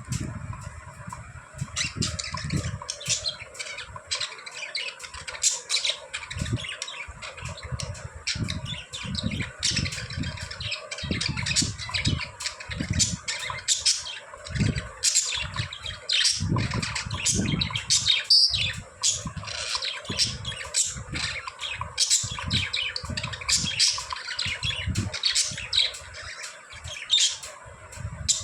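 Pet budgerigars chirping and squawking, a steady stream of short, sharp calls from several birds, with frequent low thuds mixed in.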